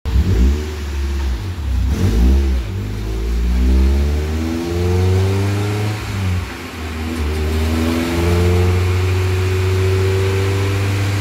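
VW 2.0 16-valve ABF four-cylinder engine being run on a chassis dyno. It gives a few quick revs, then its pitch climbs in long sweeps with drops between, and over the last few seconds it holds steady at high revs.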